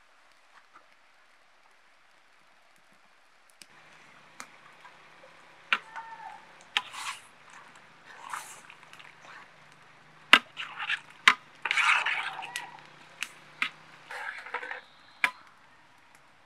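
A metal spoon stirring chopped raw tomatoes in a large metal pot, squelching, with sharp clinks and knocks of the spoon against the pot. It starts a few seconds in, and the loudest knocks come past the middle.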